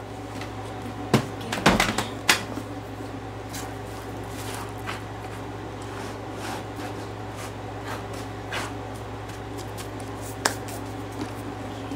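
A hand crunching and raking through a pile of dust and small debris on a wooden floor: irregular crackles and clicks, several close together in the first couple of seconds, then scattered ones, over a steady low hum.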